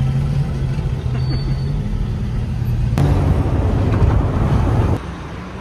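Traffic noise heard from inside a car: a steady low engine hum while stopped among cars and trucks. About three seconds in it switches abruptly to louder road and wind rush from driving at speed, then drops back to a quieter hum near the end.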